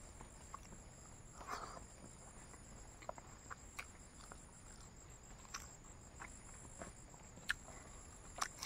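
Quiet eating sounds of dried fried pork being chewed: scattered soft crunches and mouth smacks, a second or so apart, a little louder near the end.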